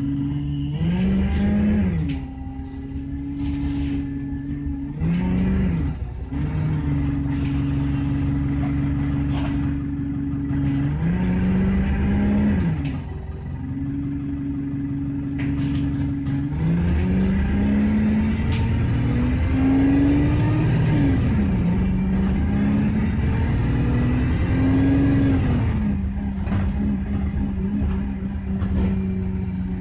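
Alexander Dennis Enviro200 XLB bus engine driving through its gears. The engine note climbs and then drops sharply about five times, with steady stretches between.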